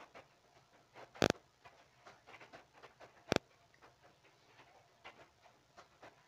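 Smartphone handled close to a clip-on microphone: two sharp clicks about two seconds apart, with faint irregular ticking of fingers on the phone between them.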